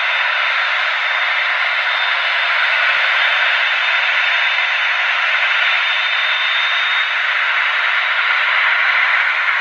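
Jet airliner engines running: a loud, steady rushing hiss with a thin high whine that stops about seven seconds in.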